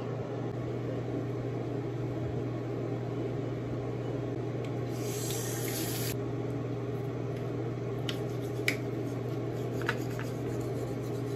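Steady low hum with a hiss over it, in a small tiled room. A short sharp hiss comes about five seconds in, and a few light clicks near the end.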